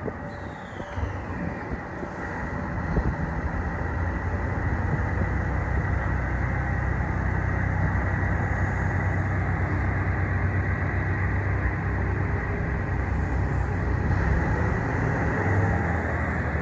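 Diesel train running past on the Dosan Line: a long, steady rumble that builds over the first few seconds and then holds.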